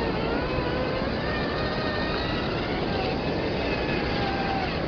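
Traxxas TRX-4 Defender RC crawler's electric motor and gearbox whining, the pitch sliding up and down as the throttle changes, over a steady rushing noise.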